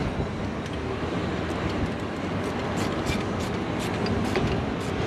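Ratchet wrench clicking in short strokes, about three clicks a second, as bolts are tightened down, over a steady low background rumble.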